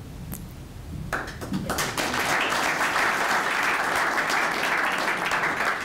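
Audience applauding, many hands clapping together, starting about a second in.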